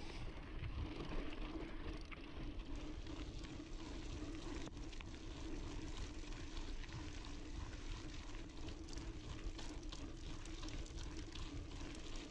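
Intense Sniper cross-country mountain bike riding along a dry, dusty dirt trail, heard from its onboard camera: a steady rush of tyre and wind noise with scattered small clicks and rattles from the bike over the bumps.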